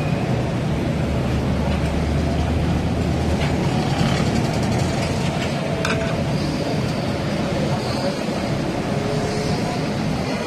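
Steady rumbling background noise of a commercial kitchen working at a flat-top griddle, with a few light clicks and knocks.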